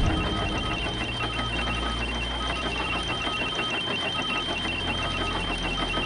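Soundtrack sound effect: a steady high electronic tone with uneven runs of short beeps at two pitches over a low drone.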